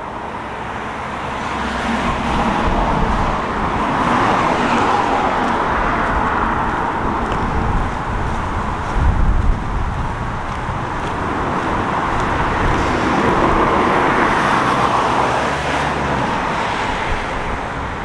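Road traffic passing close by: cars go by in two long swells of tyre and engine noise, one in the first half and one in the second, with a brief low rumble about halfway.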